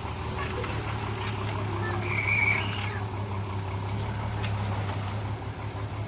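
A vehicle engine running steadily with a low hum. About two seconds in, a brief high whistle-like tone sounds over it.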